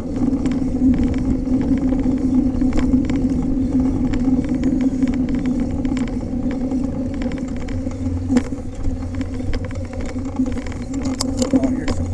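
Full-suspension 29er mountain bike being ridden along a trail: a steady rolling noise with scattered clicks and rattles from the bike over bumps.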